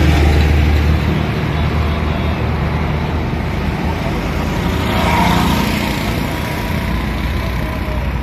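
Roadside traffic noise: a steady low rumble under a continuous hiss of road sound, with a passing vehicle swelling and fading about five seconds in.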